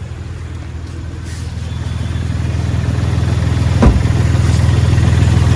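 Car engine idling steadily, growing louder, with a single sharp knock about four seconds in.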